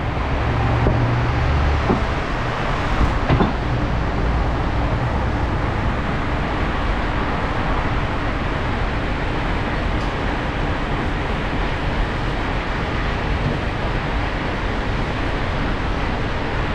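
Loaded tipper truck on the move: steady engine and road noise, the low engine drone strongest in the first few seconds, with two short knocks early on.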